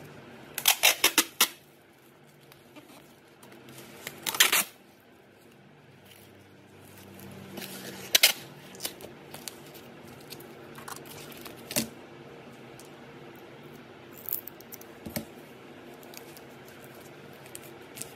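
Hands packing a cardboard box: short rasping bursts about a second in and again around four seconds in, then scattered light taps and knocks of cardboard on the table.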